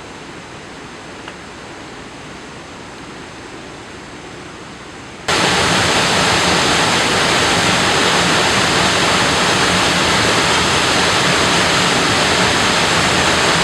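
Waterfall rushing steadily. About five seconds in it jumps suddenly to a much louder, brighter rush that then holds steady.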